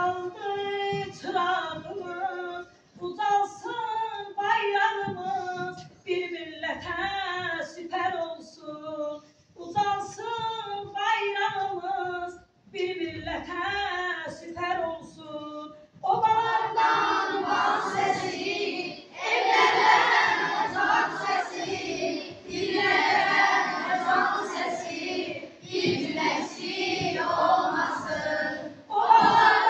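A woman sings alone in phrases with short breaks between them; about halfway through, a choir of children's voices joins in and they sing together.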